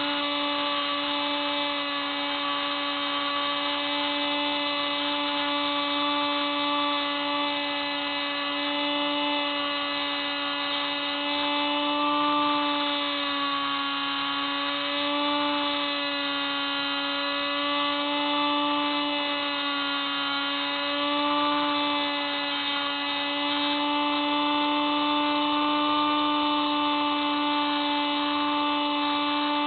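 Hubsan Spyhawk RC plane's electric motor and propeller whining steadily in flight, heard close up from its onboard camera, the pitch wavering slightly up and down.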